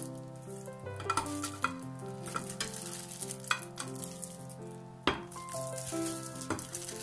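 A ceramic plate set over a stainless steel loaf pan and the two turned over together: rustling handling noise with a series of clinks and knocks of plate against metal, the loudest about five seconds in as they are set down on the counter. Soft background music with steady notes plays underneath.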